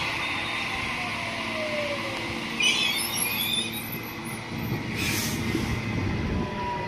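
Sydney Trains M-set (Millennium) electric train arriving at a platform: a steady rumble with a whine falling in pitch as it slows, high wheel squeals a little under three seconds in, and a short hiss about five seconds in.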